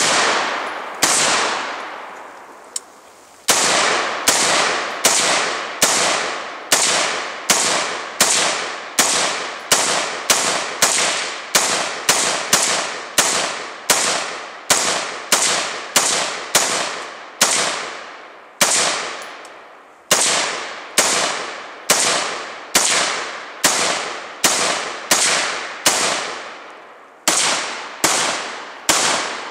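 AR-15 rifle fire: a long string of rapid semi-automatic shots, about one every second or less, each sharp crack trailing off into echo until the next. The string opens with a few spaced shots, then goes steady, with short breaks about 19 and 27 seconds in.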